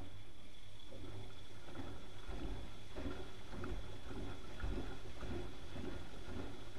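Bauknecht WAK 6950 front-loading washing machine tumbling its drum in an Easy-Care 60°C wash cycle. Water and laundry slosh in a regular rhythm of about three splashes a second over a steady motor hum.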